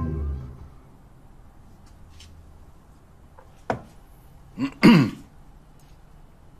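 A music chord fades out at the start, then quiet room tone with a single click. About five seconds in, a person makes two short non-speech vocal sounds, the second louder, each falling in pitch.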